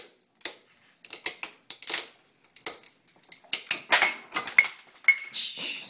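An Incredibell disco bicycle bell breaking apart as it is crushed in a bench vise: a rapid, irregular series of sharp cracks and snaps as pieces shatter and fly off. A few short ringing tones come through about two-thirds of the way in.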